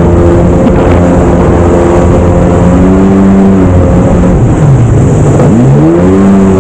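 Jet ski engine running at speed. About four and a half seconds in, the revs drop off sharply, then climb back up within about a second.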